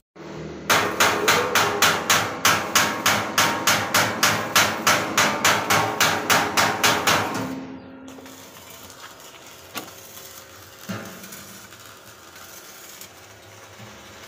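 Steel being hammered with fast, even blows, about three or four a second, which stop about halfway through. After that there is a low, steady workshop background with a couple of single metallic knocks.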